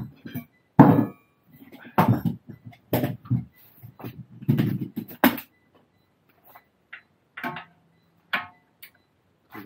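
Heavy metallic clanks and knocks from wrench work on a car's front axle: about six loud ones in the first five seconds, then a few fainter ones.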